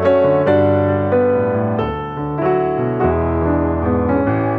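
Background piano music: a melody of struck notes over held bass notes.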